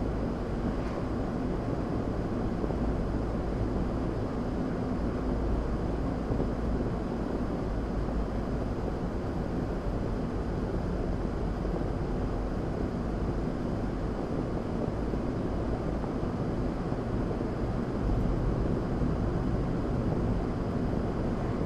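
Steady road and engine noise inside a moving car, with tyre noise on a wet road at about 35 mph. It gets a little louder near the end as the car speeds up.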